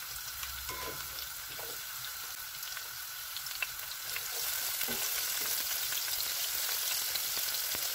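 Sliced red onions sizzling in hot oil in a pan, with small crackles. The sizzle gets louder about halfway through as a spatula starts stirring them.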